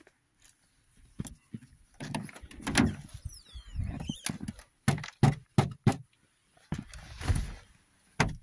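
A car door being opened, with a short falling squeak, then a series of sharp knocks and thuds as someone climbs in and settles into the seat.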